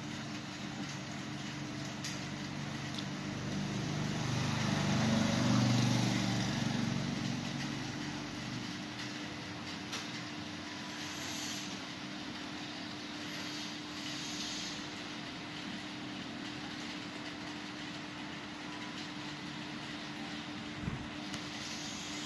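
Steady rain falling on a street, with a vehicle driving past on the wet road, growing to its loudest about five or six seconds in and fading away by about nine seconds.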